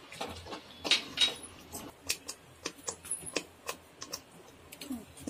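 Thick masala gravy cooking in a non-stick pot while it is stirred with a wooden spatula: irregular sharp ticks and pops, a few a second, from the spluttering gravy and the spatula against the pot.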